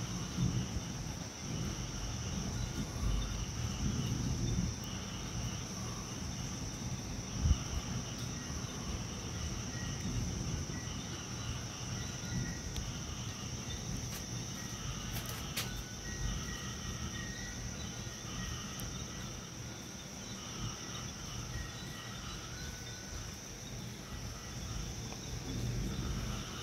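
Night insects chirring steadily in a high band, under a gusty low rumble of wind on the microphone as a rainstorm moves in. One low thump about seven and a half seconds in.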